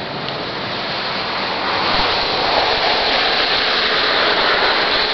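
Wind buffeting the microphone during a snowstorm: a steady, loud rushing noise with an uneven low rumble.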